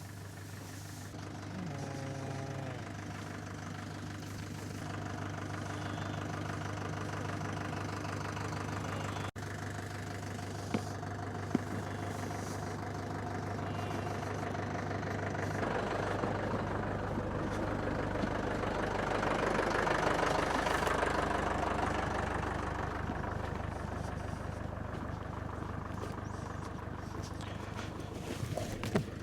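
Tractor engine running steadily, growing louder about halfway through and then easing off again.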